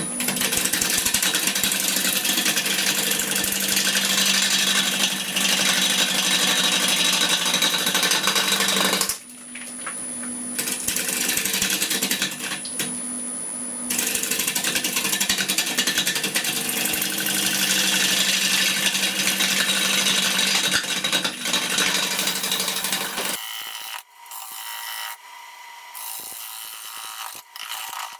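Wood lathe spinning a green-wood blank while a gouge cuts into it: a steady motor hum under loud, continuous tearing cutting noise, with a short break when the tool is lifted about nine seconds in. About twenty-three seconds in, the hum and cutting stop, leaving fainter irregular clicks.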